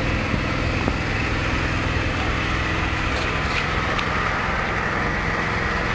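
Small petrol engine running steadily at constant speed, an even drone with no change in pitch.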